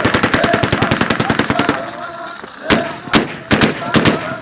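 Ritual gunfire from automatic rifles: a rapid automatic burst lasting about two seconds, then single shots about half a second apart.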